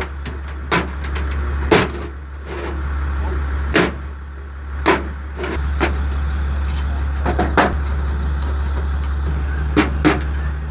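An engine running steadily at a low pitch, with a series of sharp knocks and clanks, about eight to ten, at uneven intervals.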